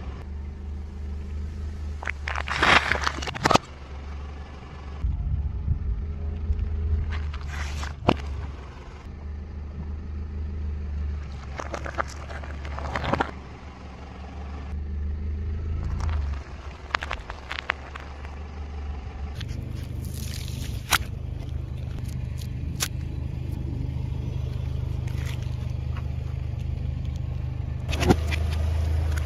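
A car engine running at a slow crawl as its tyre rolls over and crushes a series of objects, including balloons. There are several separate sharp crunches and pops, with the engine's low hum shifting in pitch between them.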